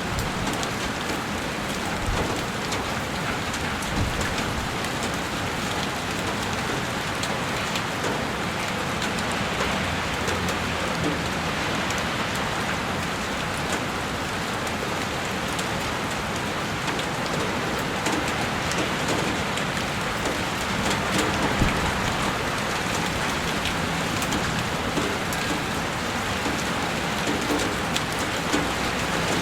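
Heavy rain falling steadily and beating against a window pane, with a dense patter of individual drops.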